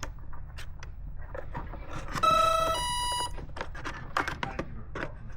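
Two short electronic beeps, a lower tone followed by a higher one, about two seconds in. They play over a steady low rumble and scattered handling clicks.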